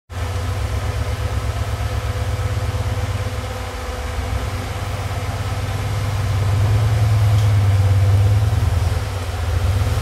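Toyota Land Cruiser rock crawler's engine running at low revs as it crawls over rock ledges. It builds to a louder, heavier pull about seven seconds in, then eases off just before the end.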